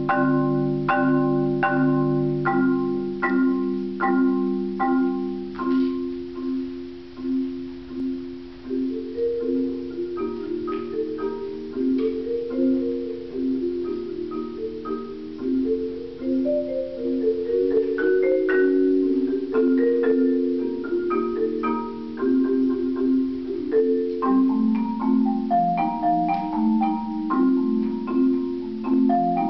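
Solo marimba played with mallets: evenly repeated chords about two a second at first, then a flowing line of quicker notes over lower sustained tones from about nine seconds in.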